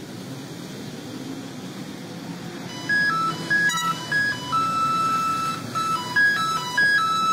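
Streetcar running on its rails with a steady low noise, joined about three seconds in by a simple electronic melody of single beeping notes, which is louder than the running noise.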